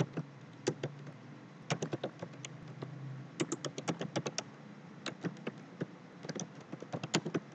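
Typing on a computer keyboard: short runs of quick keystrokes with brief pauses between them.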